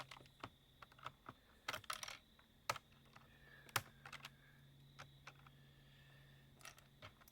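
Faint, irregular clicks and taps of hand work on a plastic electronics casing, as small covers over the hidden screws are pried and popped out, a few louder snaps among them, over a low steady hum.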